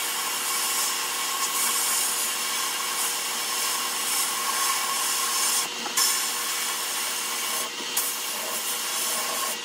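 Sandblast cabinet blast gun spraying abrasive media against a small steel toy truck part: a steady loud hiss over a steady hum. The blast stops for a moment twice in the second half as the trigger is let off.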